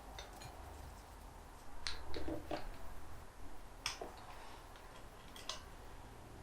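A few light, sharp metal clicks and taps, spaced out, as an Allen key and bolts are handled while starting the bolts into the pump housing. The loudest click comes about four seconds in.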